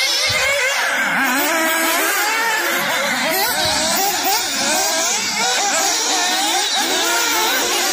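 Several nitro RC buggy engines racing together: a dense, high-pitched buzz of overlapping engines, each rising and falling in pitch as it revs and backs off.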